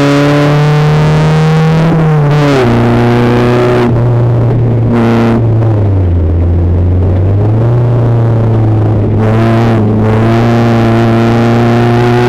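Renault Twingo Twin'Cup race car's four-cylinder engine heard from inside the cabin: held at high revs, then the revs drop in steps from about two seconds in as the driver lifts off and shifts down for a corner, bottoming out near the middle. The revs then climb again as the car accelerates out.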